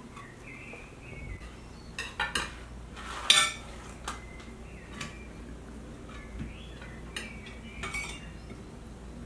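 Dishes and utensils clinking and knocking on a tabletop while food is handled: several scattered clinks, the loudest about three seconds in.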